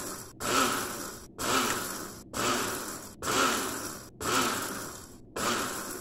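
Laralov electric blade coffee grinder pulsed six times, about once a second. Each burst is the 350 W motor spinning its stainless blades through coffee beans, starting suddenly and fading out before the next.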